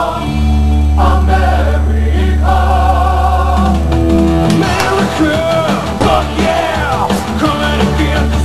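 Rock song with singing: long held sung chords over a steady bass, then drums and the full band come in about four and a half seconds in, with a voice singing over them.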